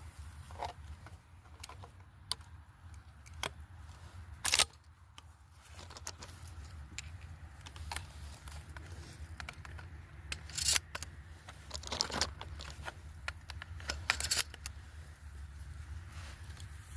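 Scattered clicks, scrapes and rustles of a hunter handling his gear, with sharper knocks about four and a half, eleven and fourteen seconds in, over a steady low rumble.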